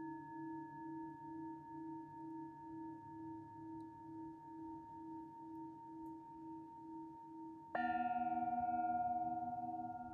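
Singing bowl ringing with a slow, even wavering beat. About three-quarters of the way through another bowl is struck sharply, its new, lower ring sounding over the first and slowly fading.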